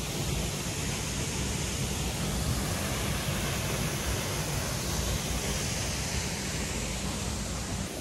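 Waterfall pouring: a steady, dense rush of falling water, heavy in the low end.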